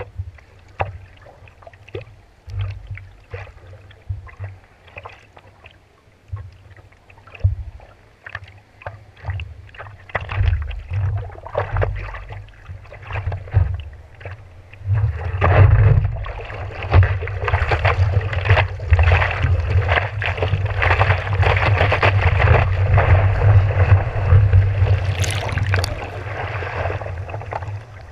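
Water lapping and slapping against a longboard's nose right at the microphone, in scattered short splashes. About halfway through it turns into a continuous splashing rush as the board moves through foamy water.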